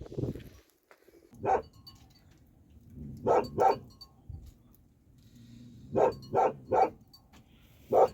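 A dog barking in short bursts: a single bark, then a pair, then three in quick succession, with another bark starting near the end.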